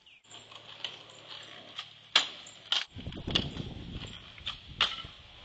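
Kick scooter clattering on asphalt: a string of sharp clacks from the scooter's wheels and deck hitting the ground as it is hopped and landed, the loudest about two seconds in. From about three seconds in, the wheels rumble as the scooter rolls.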